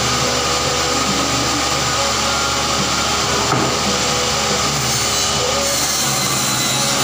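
Table saw running steadily as a sheet of plywood is cut, a loud, even machine noise.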